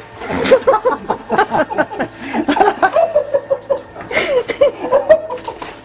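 People laughing hard in quick repeated bursts, with a drawn-out high voice about three seconds in.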